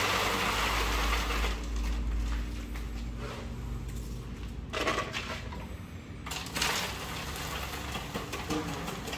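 Wet concrete mix (cement, sand and stone dust, stirred thick like porridge) being scooped from a basin and poured from a plastic scoop into a plastic pot mould. A long gritty sliding rush at the start, then shorter scoop-and-pour sounds about five and six and a half seconds in.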